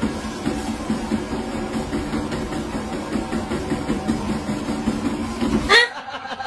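Motor and belt of a low walking-pad treadmill running steadily. It cuts off near the end into a brief, sudden loud sound.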